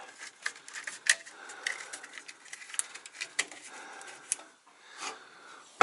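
Scattered light clicks and taps of small metal parts and tools being handled, with a louder knock near the end.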